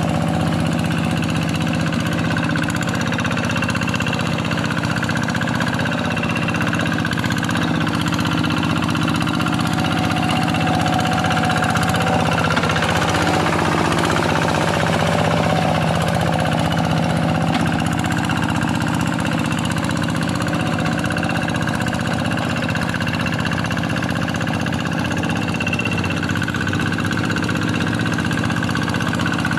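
Kubota single-cylinder diesel engine of a Quick G1000 hand tractor running steadily while ploughing a wet rice paddy; its note wavers briefly near the middle.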